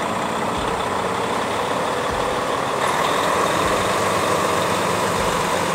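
Dump truck's diesel engine running steadily at a low idle.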